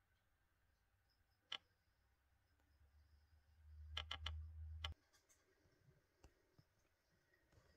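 Near silence broken by a few faint, sharp clicks: one about a second and a half in, then a quick run of three around four seconds in. A low rumble swells under them and cuts off suddenly with a last click about five seconds in.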